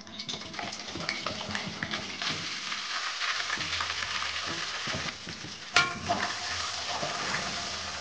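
Whole boiled eggs frying in hot oil with turmeric and chili in a metal karai, sizzling steadily. A sharp metal clink of a spoon against the pan rings out about six seconds in.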